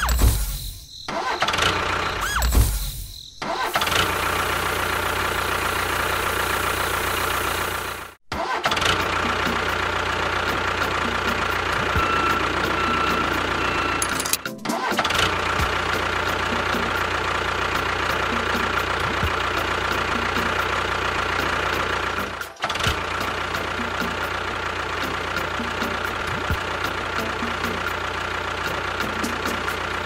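A motor running steadily with a high whine, cut off briefly three times.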